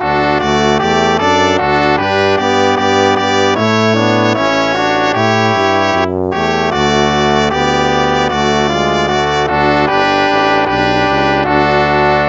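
Instrumental hymn in a brass-band sound, slow sustained chords moving from one to the next, with a brief break about six seconds in.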